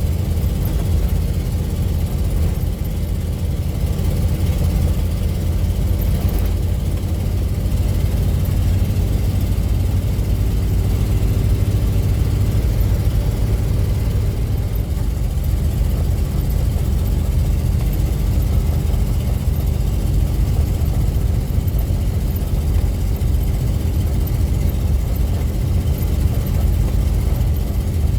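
Steady low rumble of a car being driven: engine and road noise, even throughout with no sudden events.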